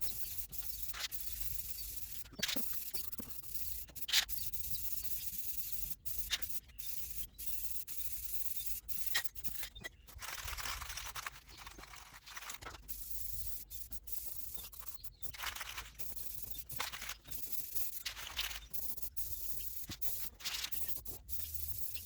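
Rust-Oleum aerosol spray paint can hissing in repeated bursts with short pauses, laying a coat of paint on a truck toolbox.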